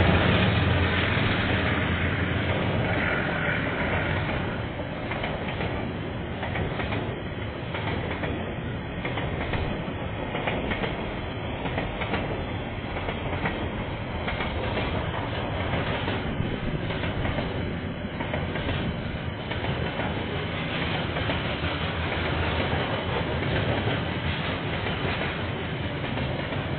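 Freight train passing: the diesel locomotive engine drone fades over the first few seconds, leaving the steady rumble and clatter of the freight wagons rolling over the track. It is picked up by a security camera microphone, so it sounds thin, with no high treble.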